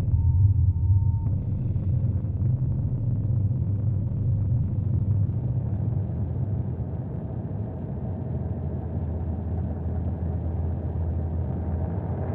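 Dark-ambient noise drone: a dense, steady low rumble. A thin high tone is held for about the first second, and a fainter, grainier upper layer swells in near the end.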